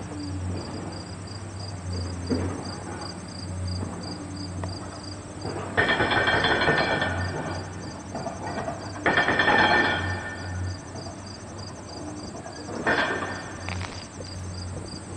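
Insects chirping steadily in summer grass, a regular pulse of about three chirps a second with a fine high trill above it. About six and again nine seconds in, louder bursts of rustling noise cover it for a second or so each.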